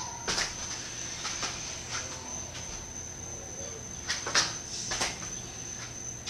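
Dull thumps of hands and feet landing on a floor mat during one-handed cartwheels: one just after the start and a few more around four to five seconds in. A steady high-pitched whine runs underneath.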